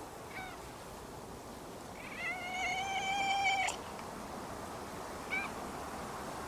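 Calico cat giving one long, steady meow lasting about a second and a half, a couple of seconds in.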